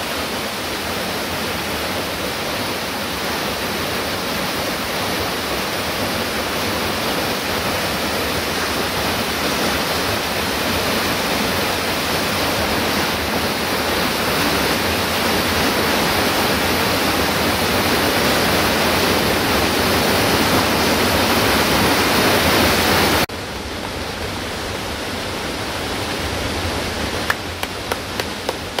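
Steady rushing water that grows slowly louder. About 23 seconds in it cuts abruptly to a quieter rush, with a few sharp clicks near the end.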